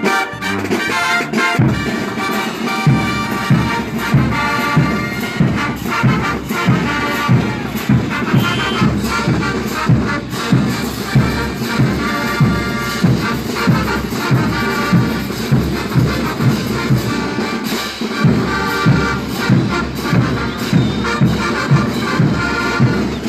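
Banda brass band playing, with horns over a steady low beat of bass drum and tuba that comes in about two seconds in.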